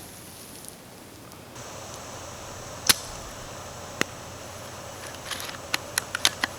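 JG Bar-10 spring-powered bolt-action airsoft sniper rifle, upgraded with a Laylax SP190 spring, firing with a sharp snap about three seconds in, followed by a single click about a second later and a quick run of clicks near the end.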